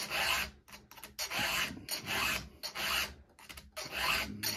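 Round chainsaw file rasping across a chain's cutter tooth in steady back-and-forth push-and-pull strokes, about two a second.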